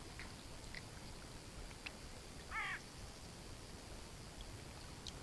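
A single short bird call about two and a half seconds in, over a faint steady background, with a few faint ticks before it.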